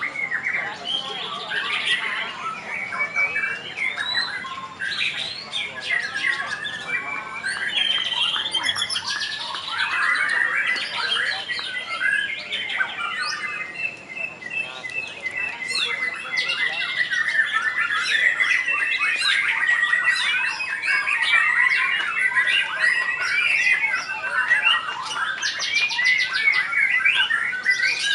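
Several caged white-rumped shamas (murai batu) singing over each other: a dense tangle of loud whistles, trills and chattering notes, with a fast rattle of repeated notes near the end.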